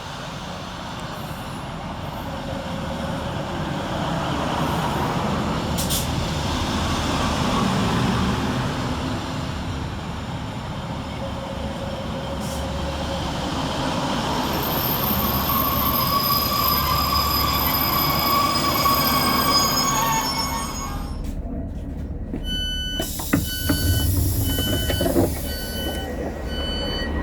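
Passenger train running into a platform and braking to a stop, its brakes and wheels squealing in high tones. About 22 seconds in, a run of evenly spaced door beeps sounds as the doors open.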